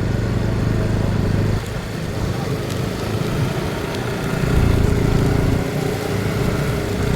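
Motorcycle engine running steadily, its level dipping slightly and swelling again partway through.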